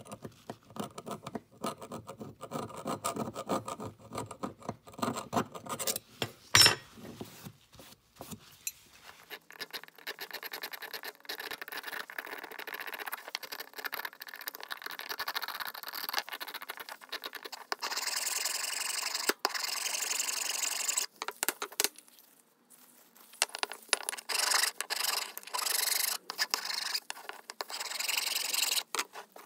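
Steel hand tools scraping and filing old paint and japanning off the cast-iron body of a Stanley No. 220 block plane: many short, irregular scraping strokes, with one sharp click about seven seconds in.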